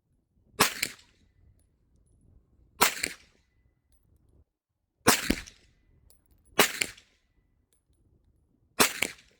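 Five single gunshots, spaced about two seconds apart, each sharp crack followed by a short echoing tail.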